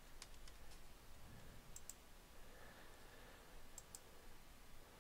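Near silence with a few faint computer mouse and keyboard clicks, including quick pairs of clicks about two seconds and about four seconds in.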